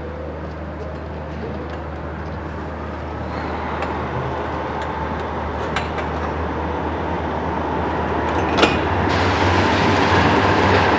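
Cat 374F long-reach demolition excavator's Cat C15 diesel engine running with a steady low hum, growing louder as the machine works, with scattered sharp cracks and knocks of concrete breaking. The loudest crack comes a little past the middle, and the noise thickens near the end.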